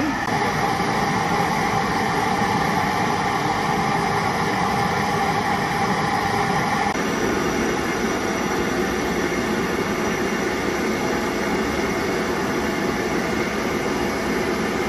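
Steam-bending rig for timber bow rails running: a steady rushing hiss of steam and burner. A steady tone rides on it for the first half, and the sound shifts slightly about seven seconds in.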